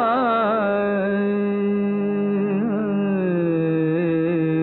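Male Indian classical-style voice singing a wordless alap over a steady tanpura drone, with quick ornamented turns near the start and a long note that slides down partway through.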